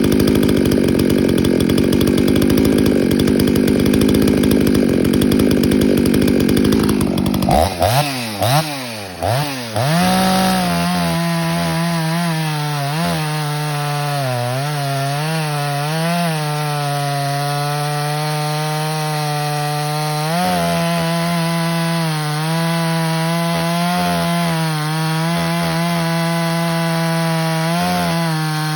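Ported Husqvarna 288XP two-stroke chainsaw with a 28-inch bar running at high revs in red oak. At first it gives a dense, noisy roar. After about seven seconds its pitch swings up and down several times, then it holds a steady high note that dips and recovers slightly under load.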